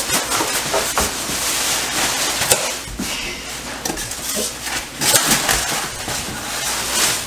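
Black plastic trash bags rustling and crinkling as styrofoam packing pieces are stuffed into them, with scattered light knocks of the foam.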